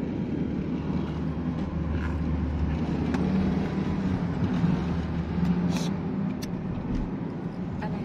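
Road noise of a car driving, heard from inside the cabin: a steady low engine and tyre hum, with a few short clicks about three and six seconds in.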